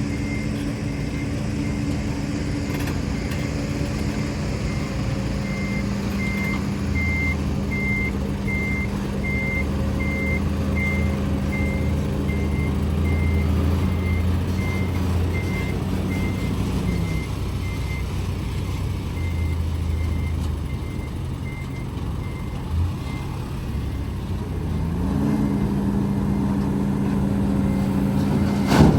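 Heavy diesel engines running at an earthmoving site, with a reversing alarm beeping steadily for most of the stretch. The engine note drops about two-thirds of the way through, then climbs again near the end, where there is a sharp knock.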